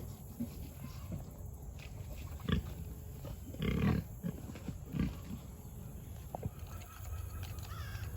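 Pig grunting several times: short grunts, with a longer, louder one about four seconds in, over a steady low rumble.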